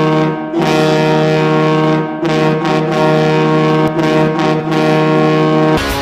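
Ice hockey goal horn blowing a long, low, steady blast with two brief breaks. Just before the end it gives way to a goal song of electric guitar and drums.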